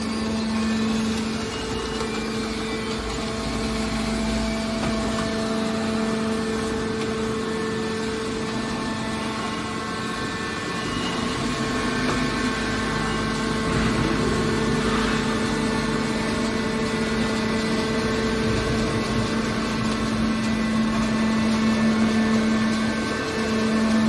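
Steady hum of a hydraulic scrap metal baler's power unit running idle, a constant low tone with no strokes or changes.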